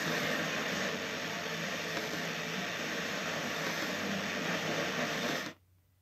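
Steady FM radio static hiss from a cheap Chinese digital audio module tuned to a preset with poor reception. It cuts off suddenly about five and a half seconds in as the module is switched over to AUX.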